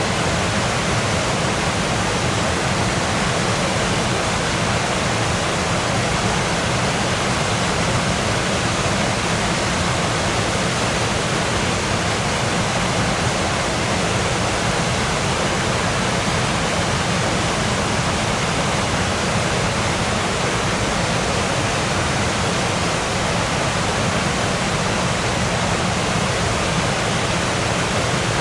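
Waterfall rushing: a steady, unbroken roar of falling water, full in the low end.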